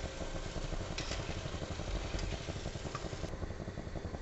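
Hot oil in a kadai sizzling and crackling steadily as fried boondi (gram-flour batter drops) are lifted out with a slotted spoon, with a few sharper clicks.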